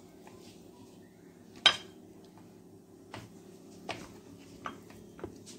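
Knife cutting boiled chicken livers on a wooden cutting board: one sharp knock about one and a half seconds in, then a few lighter clicks and taps of the blade on the board.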